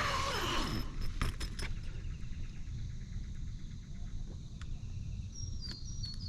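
Outdoor bush ambience: a steady low rumble with a faint insect trill, a few sharp clicks about a second in, and short high chirps near the end.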